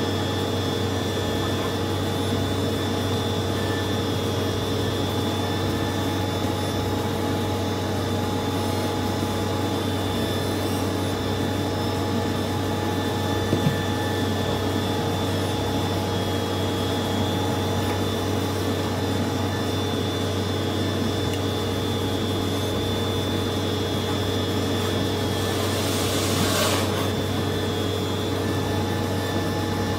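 A steady mechanical hum with a few held tones, and a brief hissing rush about 26 seconds in.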